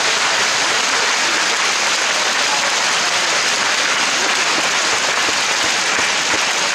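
Audience applauding: a dense, even clapping.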